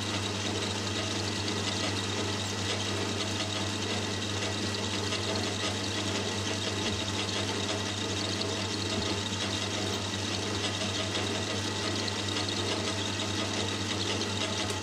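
Boxford lathe running under power, a steady low motor hum with machine noise, while a triangular carbide insert tool takes its first cut on a spinning aluminium slug.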